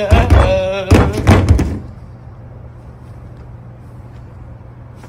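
A man's voice singing or chanting a line over a low, pulsing beat, cutting off about two seconds in. After that only a faint, steady low hum remains.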